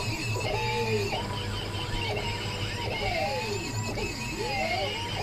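Stepper motors of a homemade CNC machine whining as its axes move, the pitch gliding up and down with each change of speed and direction, over a steady low hum.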